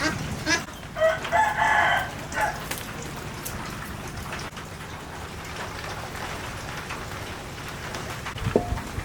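A rooster crows once, starting about a second in and lasting about a second, over steady rain. A short call follows near the end.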